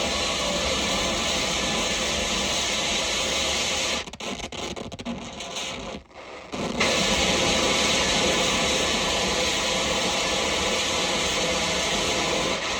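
Harsh noise music: a dense wall of static and hiss with faint steady drones under it. About four seconds in it stutters and cuts in and out for a few seconds, then comes back slightly louder.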